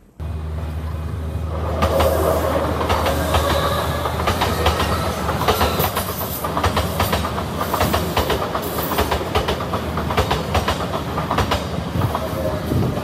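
Odakyu Line electric train passing close by over a level crossing. A steady low rumble runs under a rapid, irregular clatter of wheels over the rail joints.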